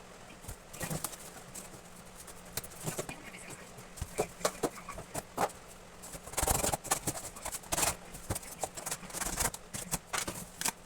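Irregular clicks, taps and scratchy rustles of cardboard and craft materials being handled and worked by hand, with a longer scraping rustle a little past the middle.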